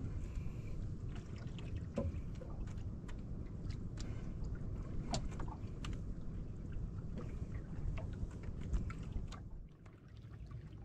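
Steady low rumble of wind and sea around a small fishing boat, with scattered light clicks and taps throughout, quieter near the end.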